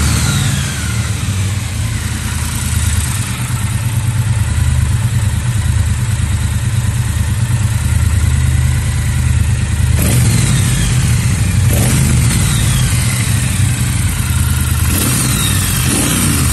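2021 Triumph Bonneville T120's 1200 cc parallel-twin engine running in neutral, held at around 3,000 rpm at first, then running on steadily with a low, even beat.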